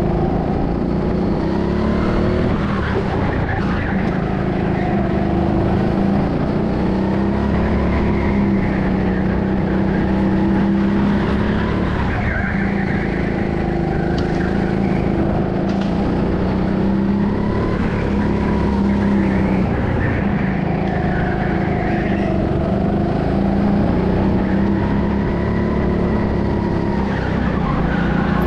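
Go-kart driven hard round a track, its motor note rising and falling every few seconds through the corners.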